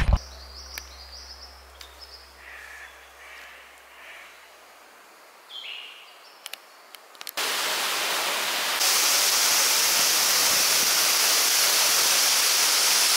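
A waterfall pouring down a cliff face, a loud steady rush that starts suddenly about seven seconds in and grows hissier a second later. Before it, quiet bush with a few short bird calls.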